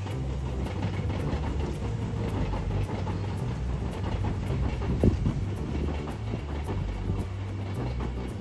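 Kintetsu Minami-Osaka Line electric train running past over the track, wheels clattering, with one loud clunk about five seconds in.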